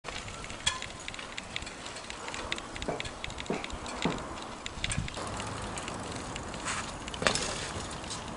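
Irregular light clicks and knocks over a steady background hiss, with a few soft thumps between about three and five seconds in and a sharper click near the end.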